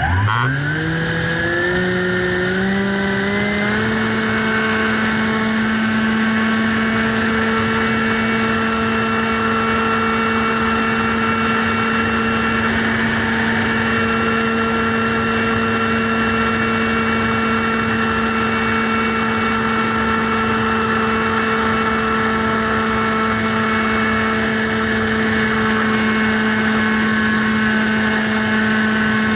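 Radio-control FPV plane's motor and propeller spinning up in steps over the first four seconds, then running at a steady pitch over a constant hiss.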